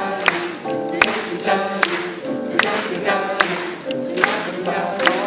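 Live pop-jazz music: several voices singing a wordless melody, with sharp clap-like beats keeping time a little less than once a second.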